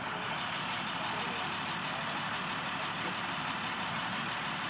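School bus engine idling steadily while the bus stands stopped.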